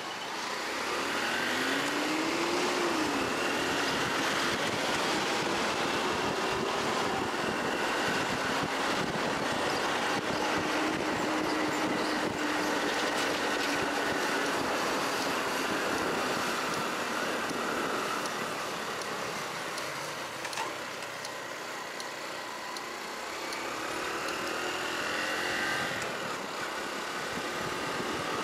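Honda Cross Cub 110's single-cylinder engine running on the move over steady wind and road noise. Its pitch rises as it accelerates about a second in, drops back, and rises again near the end.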